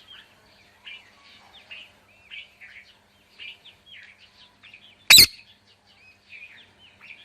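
Parrot chattering in many short, soft chirps, with one loud, shrill squawk about five seconds in.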